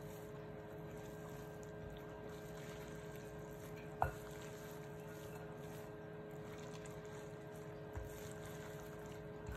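A salad of dressed glass noodles and vegetables being tossed with tongs in a glass bowl: a faint wet rustle over a steady hum, with one sharp click about four seconds in and two smaller ones near the end as the tongs knock the bowl.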